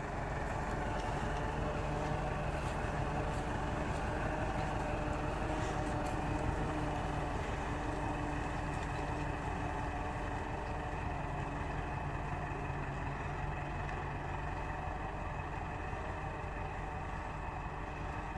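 Massey Ferguson MF 385 tractor's 85 hp four-cylinder diesel engine running steadily under load while pulling an offset disc harrow through the soil.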